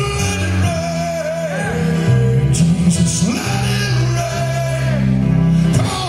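Live gospel worship music: a man singing and calling out in wavering, gliding phrases into a microphone over a band's sustained low chords.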